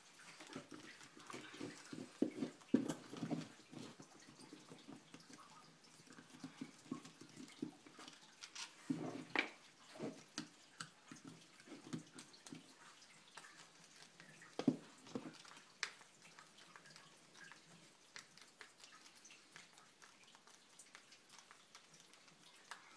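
Small irregular clicks and taps of tools, screws and plastic parts being handled while a Traxxas RC transmission case is taken apart. A few louder knocks come about three seconds in, around nine seconds in and about fifteen seconds in.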